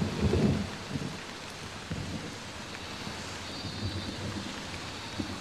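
Heavy monsoon rain pouring steadily, with a low rumble of thunder in the first second.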